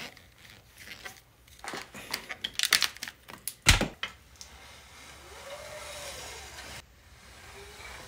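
Clattering and knocking of objects being handled on a workbench, with one heavy knock a little before four seconds in, followed by a steady hiss for about two seconds.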